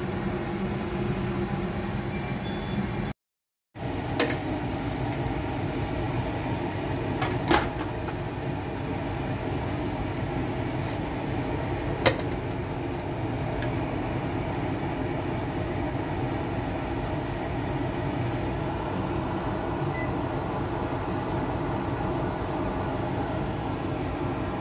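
Steady rushing hum of a wok steaming eggplant on an induction hob, with a few sharp clinks of the glass lid, the loudest about seven and a half seconds in and another about twelve seconds in.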